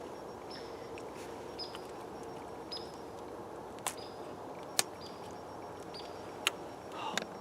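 Quiet woodland background with a short high note repeating about once a second and three sharp clicks in the second half.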